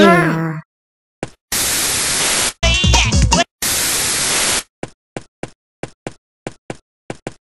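The tail of a groaning voice, then two bursts of loud static-like hiss with a short warbling, garbled snatch of sound between them. A run of short clicks follows, about three a second.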